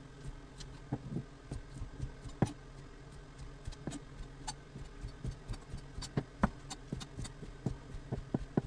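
Kitchen knife chopping simmered beef tendon on a plastic cutting board: irregular knocks of the blade on the board, a few a second, starting about a second in.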